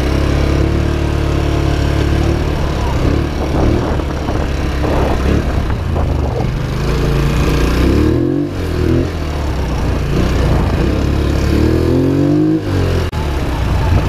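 Polaris Sportsman XP 1000 S ATV's twin-cylinder engine running on the move, its pitch rising and falling several times as the throttle is worked, with brief let-offs about the middle and again near the end.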